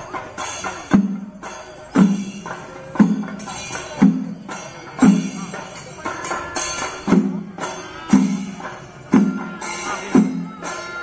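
Kerala temple festival percussion ensemble of drums and hand cymbals playing: a strong accented beat lands about once a second over continuous rolling drum strokes and ringing cymbals.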